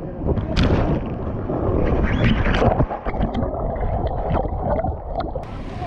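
Water rushing and splashing around a camera as it comes down an inflatable water slide and goes under the water, with muffled gurgling and several sudden splashes.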